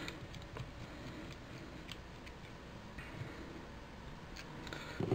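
Faint, scattered small clicks and ticks of a small screwdriver turning out the cable-clamp screws in a GHD Eclipse hair straightener's plastic housing, with a loose screw being set down.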